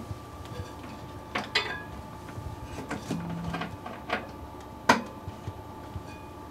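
Hands handling and fitting metal and plastic parts of a test rig: a handful of separate clicks and knocks, the sharpest about five seconds in.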